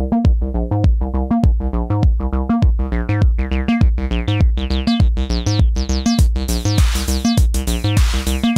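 Eurorack acid bassline, a VCO-3340 oscillator through a 303-style resonant filter, pumping against a steady 909-style kick: the bass is side-chain ducked on every beat by a VCA to make room for the kick. From about three seconds in the filter opens, the notes growing brighter and squelchier, and a hissing hi-hat pattern joins near the end.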